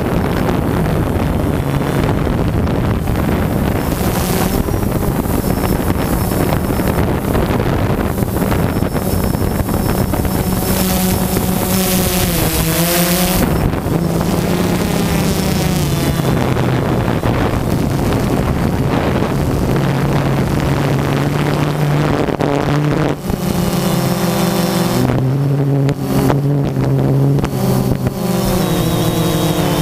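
A drone's electric motors and propellers whine and hum in flight, heard close from the onboard camera, with wind noise on the microphone. The pitch shifts up and down as the motors change speed, bending around the middle and dropping a little past halfway.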